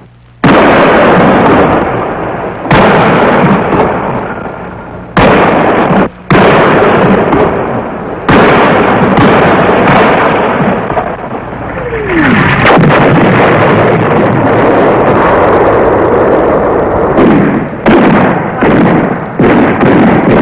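Artillery barrage: about ten heavy blasts one after another, each with a long rumbling decay. About twelve seconds in, a falling whistle runs into one of the blasts.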